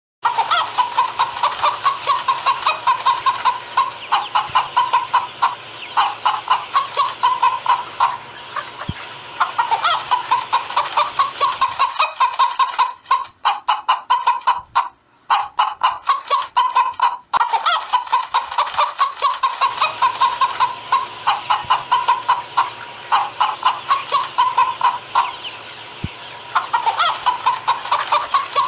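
Hens clucking and cackling in long, rapid runs of short calls, with a few brief pauses partway through.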